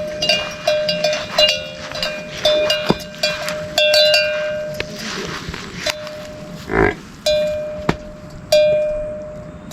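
Metal bell hung on a livestock animal's neck, clanking at an uneven pace as the animal moves, each strike leaving a short ringing tone. A brief dull sound comes about seven seconds in.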